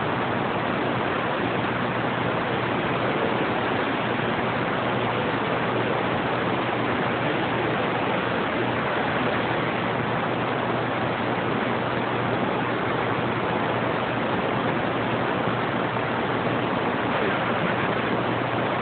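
CB radio static: an even, steady hiss from the receiver with no station coming through, with a faint low hum beneath it.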